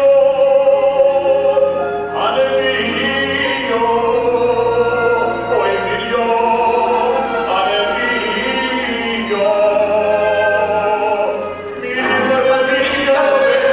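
Group of voices singing a Yiddish folk song in long held notes, with no clear words.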